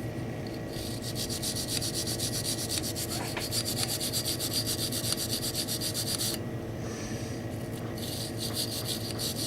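An old toothbrush scrubbing quickly back and forth inside a dirty pistol slide, cleaning out the Glock 26's sight seat. Rapid, even strokes run for about five and a half seconds, pause for about a second and a half, then start again near the end.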